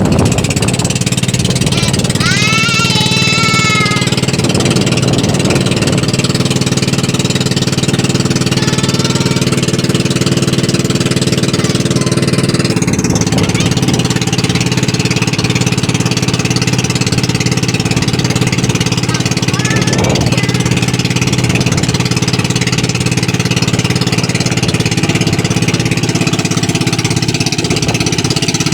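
Small inboard engine of a motorized outrigger boat (pambot) running steadily at cruising speed, loud and close.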